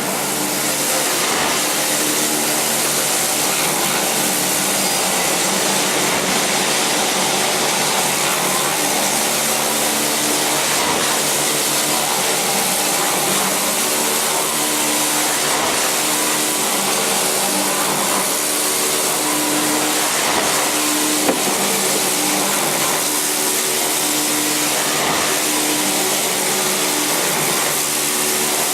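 Motor-driven grate-cleaning machine running steadily: a constant motor hum under a broad hiss, with one brief click about three quarters of the way through.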